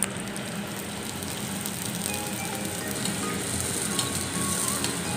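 Square egg pathal pastry deep-frying in a pan of hot oil: steady sizzling with fine crackles. The sizzle grows louder from about halfway as the oil bubbles up around the pastry.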